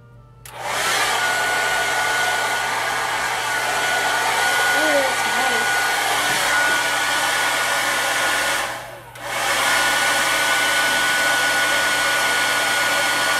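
SuperGroupies Sealing Wand hair dryer running, a steady airy rush of the motor and fan with a thin steady whine on top. It is switched off for a moment about two-thirds of the way through, then comes straight back on.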